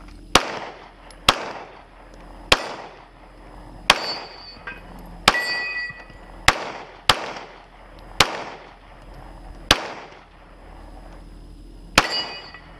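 Semi-automatic pistol firing ten shots at an uneven pace, about one to one and a half seconds apart, each shot trailing an echo. After a few of the shots a struck steel target rings briefly.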